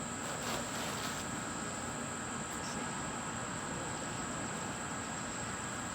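Steady outdoor insect chorus, a continuous high-pitched drone, with a few faint rustles in the first second.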